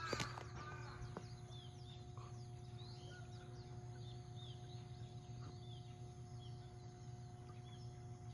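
Faint outdoor background: small birds chirping, short repeated calls, over a low steady hum.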